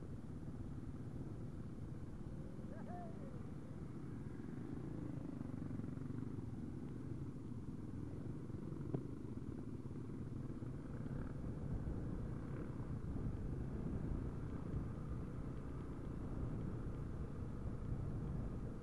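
Trail bikes running at low revs, the nearest a Husaberg FE 570 single-cylinder four-stroke, a steady low rumble that grows a little louder in the second half.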